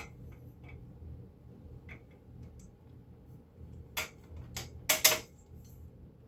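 Small metal hardware clicking and clinking as a handle is bolted onto a steel miter saw stand: a few scattered sharp clicks, then a quick cluster about four to five seconds in, the loudest pair close together.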